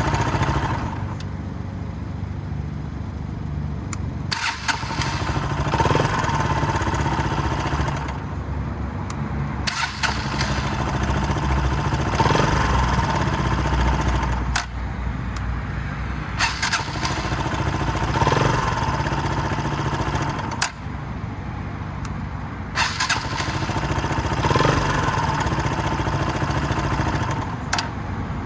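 Kawasaki KLX125 air-cooled 125 cc single-cylinder four-stroke engine started and shut off over and over, roughly every five to six seconds, with sharp clicks at the changeovers. At some shut-offs there is a metallic 'kachan' clack that comes and goes, and the engine is being checked for it as an abnormal noise.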